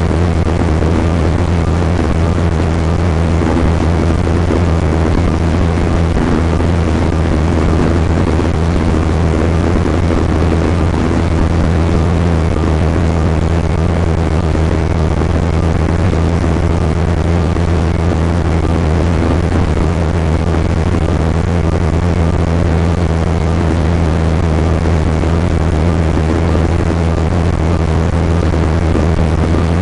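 A vehicle's engine running at a steady speed, a loud, even low drone that does not change.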